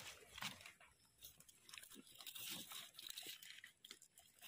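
Faint crunching and scraping of a knife digging into soil and leaf litter, with small scattered clicks and rustles.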